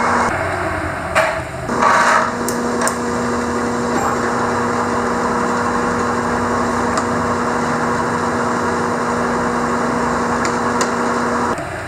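Carlton radial arm drill press running with a steady hum, with a few sharp knocks between about one and three seconds in.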